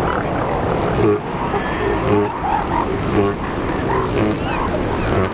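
Northern elephant seals on a breeding beach calling, pups and mothers together: several short, wavering higher cries and lower pulsed calls, some overlapping, over a steady rumble of surf.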